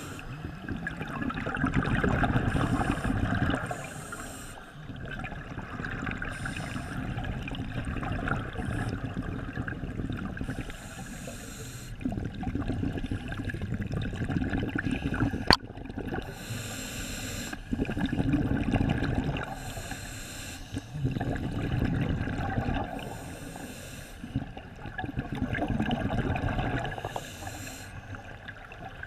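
Scuba diver breathing through a regulator, heard underwater through a camera housing: hissing breaths and rumbling bursts of exhaled bubbles in a cycle every few seconds. A single sharp click about halfway through.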